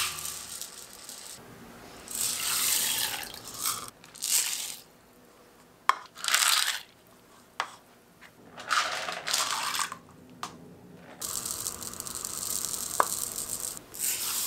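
Dry grains and beans poured from a cup into a glass bowl of water, about five separate pours, each a rushing, pattering hiss. A few sharp clicks fall between the pours.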